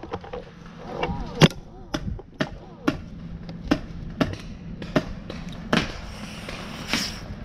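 Paintball markers firing single shots: about ten sharp pops spaced irregularly, the loudest about a second and a half in.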